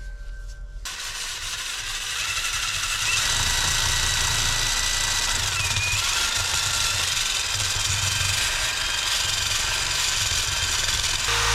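Handheld power tool running against the steel expansion chamber of a two-stroke dirt bike exhaust, scrubbing off rust and grime. It starts about a second in, builds over the next two seconds, then holds steady with a high whine.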